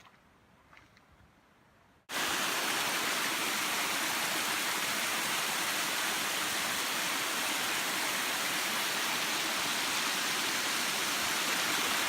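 Faint footsteps on a trail, then an abrupt cut about two seconds in to the loud, steady rush of fast-flowing mountain creek water.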